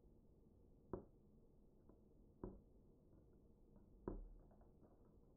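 Near-silent room tone broken by three short, soft thumps about a second and a half apart, the last with a slightly longer low rumble.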